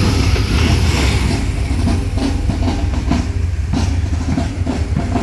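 Several motorcycle engines running at low speed as a column of touring motorcycles rides slowly by, a steady deep rumble.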